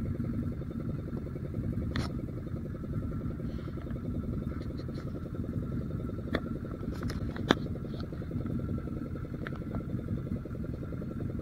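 A fishing boat's engine running steadily at slow trolling speed, a low continuous rumble. A few sharp clicks or knocks come over it, the loudest about seven and a half seconds in.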